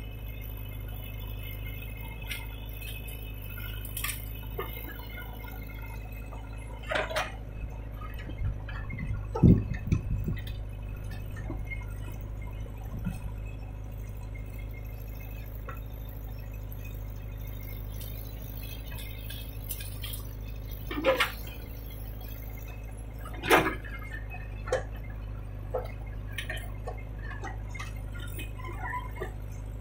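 JCB 3DX backhoe loader's diesel engine running steadily as the backhoe digs soil, with a few sharp metallic knocks and clinks from the bucket and arm, the loudest about nine and a half seconds in and two more around twenty-one and twenty-three seconds in.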